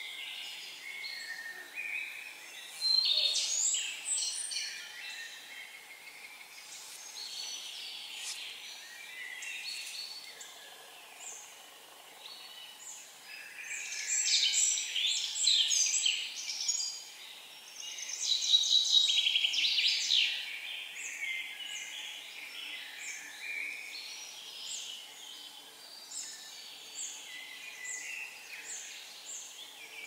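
Footsteps and rustling on a dry forest path through heather, louder in a few bursts, with small birds calling.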